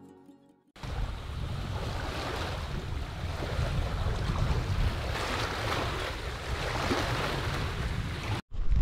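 Wind buffeting the microphone over choppy lake water, with waves washing in: a steady rushing noise with a deep rumble that cuts off suddenly near the end. A guitar tune fades out just before it starts.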